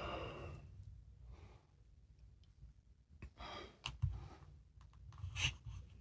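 Faint handling of JB Weld epoxy tubes being picked up and opened: a few soft rustles and small clicks.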